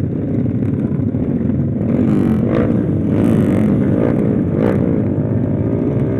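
Motorcycle engine running on the move under a dense, steady rumble, its pitch rising and falling as the throttle is worked from about two seconds in.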